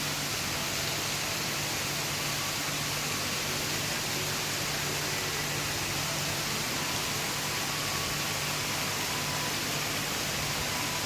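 Steady rain falling, an even hiss without breaks or changes in loudness.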